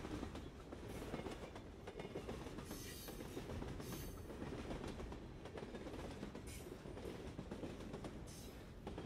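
Train running on the rails: a steady low rumble, with several brief bursts of hiss.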